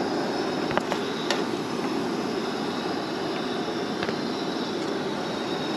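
Steady frying hiss of fish pieces in hot oil in a pan on a propane camp stove, with a few sharp clicks of metal tongs as pieces are lifted out.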